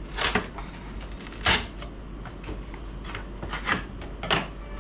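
Cardboard soda-can pack being cut and torn open by hand: several short scrapes and rustles at irregular intervals.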